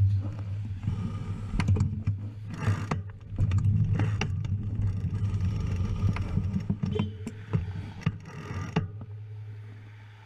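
Steady low hum of motor-vehicle engines in nearby traffic, with scattered clattering knocks through most of it. The hum fades near the end.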